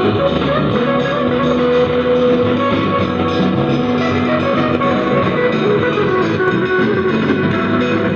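A song played loud through a loudspeaker driven by a single-channel mono amplifier board with 5200 output transistors, running at full volume for a sound test.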